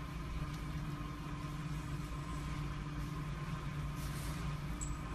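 Steady low mechanical hum with a few fixed tones, from an unseen machine or appliance; about four seconds in, a faint rustle of fabric as a French bulldog puppy squirms in a plush dog bed.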